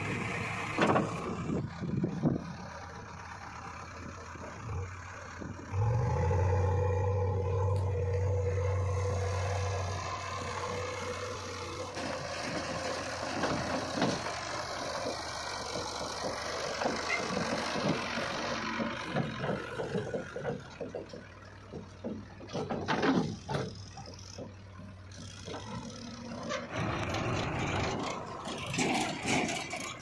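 Diesel engine of a JCB 3DX backhoe loader running, its note stepping up about six seconds in and easing back a few seconds later, with occasional knocks and clanks. Near the end a tractor's diesel engine takes over.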